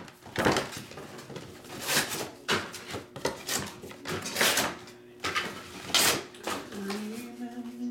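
Packaging being handled: irregular rustles and knocks about every second. A low steady hum comes in near the end.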